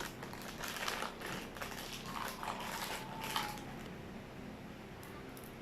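Rustling and crinkling of plastic packaging being handled, a quick run of noisy crackles over the first three and a half seconds, with a faint thin high tone partway through.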